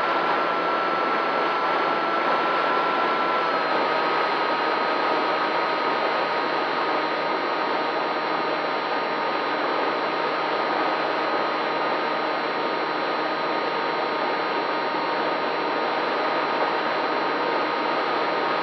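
FPV quadcopter's electric motors and propellers running, a steady whine over a hiss of rushing air; the whine drops a little in pitch about three and a half seconds in.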